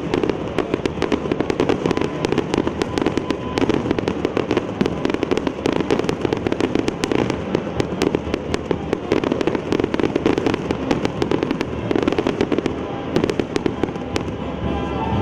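Fireworks display: a dense, continuous barrage of rapid bangs and crackling reports, many a second, with no pause.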